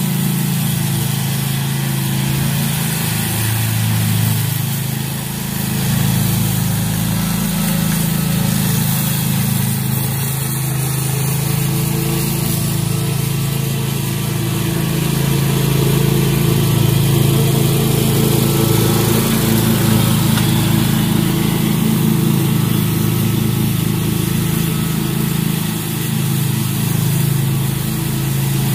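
Walk-behind lawn mower engine running steadily while cutting grass.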